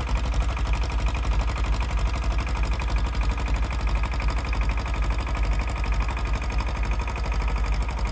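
Tractor engine running steadily under plowing load, with a fast, even pulsing beat.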